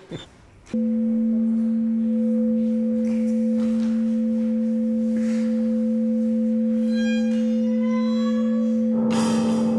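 A steady, nearly pure low electronic tone with one faint overtone. It starts abruptly just under a second in and holds at an even level without fading. Faint high tones flicker above it in the last few seconds, and a short hiss comes near the end.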